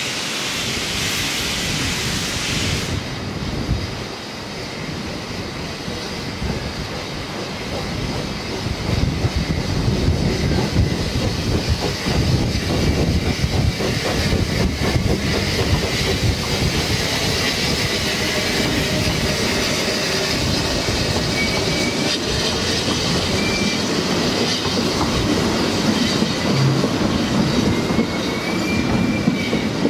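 Narrow-gauge steam train, 2-6-2T locomotive Lyd hauling coaches, moving off and passing close. A hiss of steam for the first few seconds, then the rumble and clatter of the wheels over rail joints and pointwork, growing louder about eight seconds in, with faint wheel squeals near the end.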